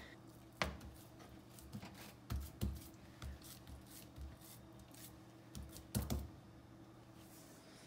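Hands patting and pressing soft cookie dough into a cast iron skillet on a glass-top electric stove, with scattered soft knocks as the heavy pan is pushed against the cooktop, clustered about two and a half seconds in and again about six seconds in. A faint steady hum runs underneath.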